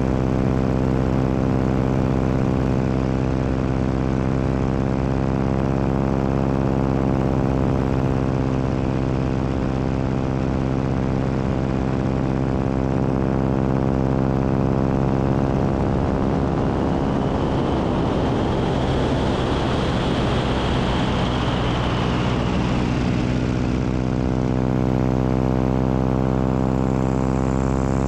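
Biplane's piston engine and propeller droning steadily in flight, with wind rushing over the wing. About two-thirds of the way through, the wind noise swells for several seconds and a faint whistle rises and falls, then settles back.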